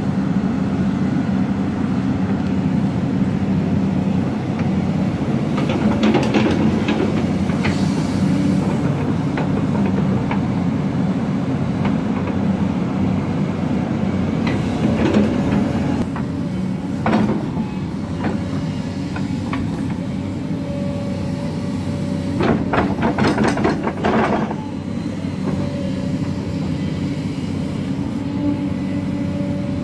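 Tracked excavator's diesel engine running steadily under load as it works its bucket. Several short bursts of clatter, the longest about three-quarters of the way through.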